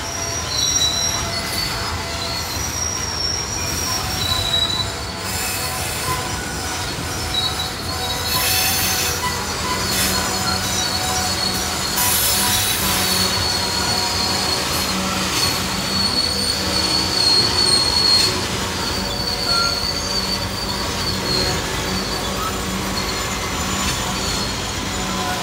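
Freight train's steel wheels squealing against the rails as the cars grind around a sharp curve: several thin, high-pitched squeals that wander in pitch and overlap, over the steady rumble of the passing train.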